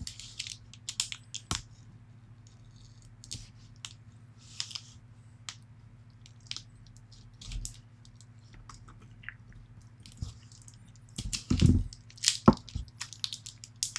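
Scattered small clicks, taps and scrapes of hands working a disassembled padlock and its taped key, with some crinkling, busier and louder near the end, over a faint steady low hum.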